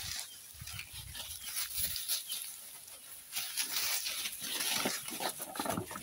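Goat kids feeding at hanging bundles of fresh grass and leafy fodder, pulling and tearing at it: a continuous run of small rustles and snaps, with a few low dull bumps in the first two seconds.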